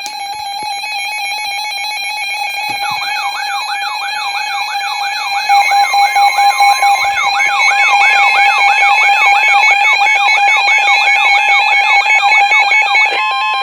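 Emergency alert tones: a steady high electronic tone, joined about three seconds in by a siren-like sweep that rises and falls about three times a second. The sound gets louder about halfway through and cuts off abruptly just before the end.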